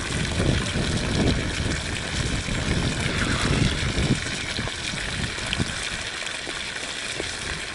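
Pond water splashing and trickling steadily, busier for the first four seconds and easing after.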